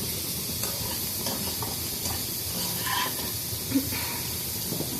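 Sliced onions sizzling in hot oil in a pan, fried to light brown: a steady hiss with a few faint ticks.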